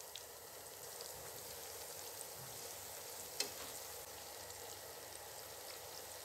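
Crumb-coated baby corn pieces deep-frying in hot oil in a nonstick pan: a faint, steady sizzle. About halfway through there is one sharp click as metal kitchen tongs touch the pan to stir the pieces.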